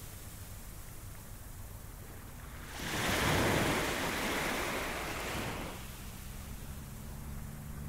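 Ocean surf on a beach: a low, steady rumble, then a wave breaks about three seconds in, swells loudly and washes out over the next few seconds.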